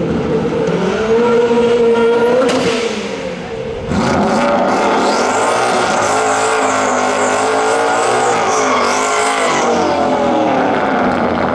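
Turbocharged Ford Mustang GT V8 revving, with a rising whistle near the three-second mark. About four seconds in it goes to a steady high rev with the rear tyres spinning and squealing in a burnout for about five seconds, then the revs ease off.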